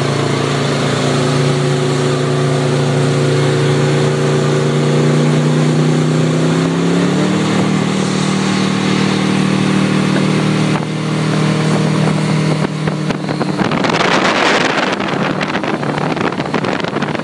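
Powerboat engine running steadily at speed, with wind and water rushing past. About seven seconds in its pitch steps up slightly, and near the end a loud rush of noise swells over it.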